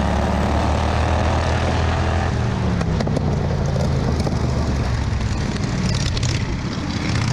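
Racing ride-on lawnmower's engine running under the driver at speed; about two seconds in its steady note drops away as the mower slows into a corner, with occasional sharp rattles from the chassis on the dirt track.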